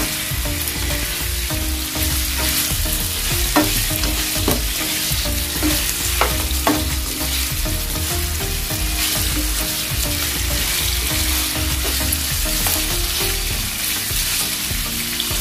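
Chicken pieces sizzling in hot oil in a nonstick frying pan with onion, garlic and ginger, stirred with a spatula that scrapes and knocks against the pan a few times. The sizzle is a steady hiss under the stirring.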